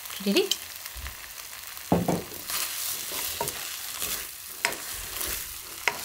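Potatoes, pork and vegetables in thick jjajang sauce sizzling in a hot pan while a spatula stirs and tosses them, scraping against the pan several times. Sesame oil has just been drizzled in at this final stage of cooking.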